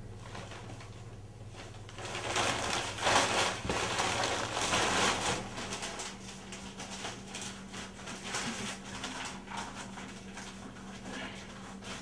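Paper rustling and crinkling as a magazine's pages are handled, loudest for about three seconds starting two seconds in, then lighter rustles. A low steady hum runs underneath.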